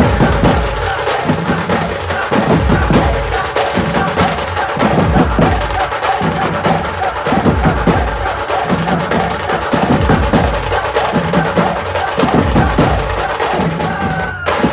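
Loud dhumal band music: fast, dense drumming with heavy bass drum hits under a sustained melody line.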